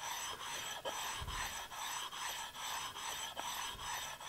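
An oil-lubricated India stone rubbed back and forth over the flat metal surface of a lathe compound, a steady gritty scraping in even strokes a little over two a second. It is stoning down raised high spots.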